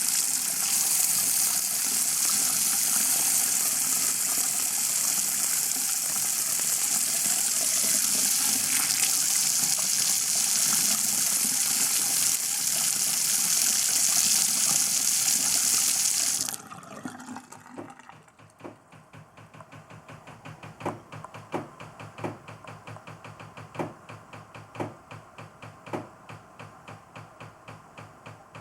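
Hot water running hard from a bathroom sink faucet, shut off about sixteen seconds in, followed by a rapid, even knocking in the water pipes, about three knocks a second with some louder ones. The uploader puts the knocking down to loose pipes banging against walls or a vent pipe for lack of rigid support.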